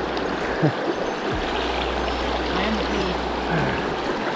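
Shallow river current rushing and splashing over rocks close to the microphone, a steady even wash of water.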